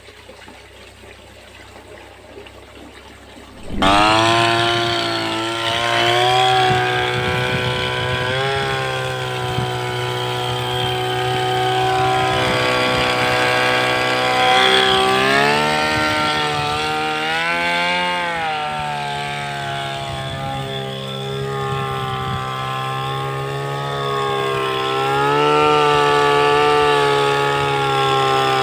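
Small two-stroke engine of a motorized backpack sprayer running at high speed while it sprays pesticide mist. It starts suddenly about four seconds in, and its pitch rises and falls several times as the throttle is varied.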